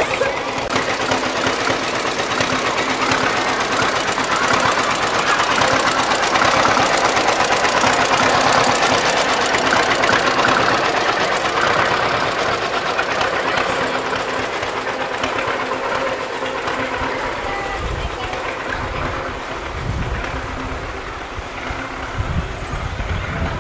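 Tractor engine running as it tows a parade float past, growing louder to a peak about a third of the way in and then fading. People's voices along the street run underneath.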